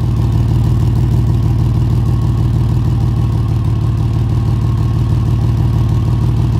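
2010 Ford F-150 V8 idling steadily, its exhaust note a fast, even low pulsing. The exhaust pipe is leaking at a joint, which gives the weird noise of an exhaust leak.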